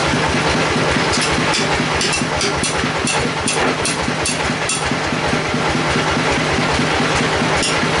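Band sawmill running without cutting: a steady machine drone with an even low pulse. From about one to five seconds in, a run of sharp metallic clicks comes at roughly two or three a second.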